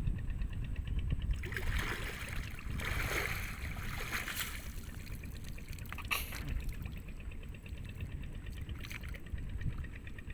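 Water splashing and trickling in irregular bursts over a steady low rumble.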